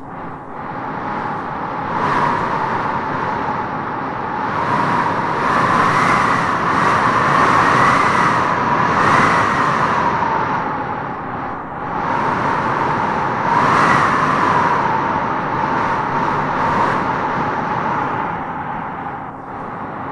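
Wind blowing in gusts, a steady rushing with a howling whistle that swells and falls several times, loudest about a third of the way in and again past the middle.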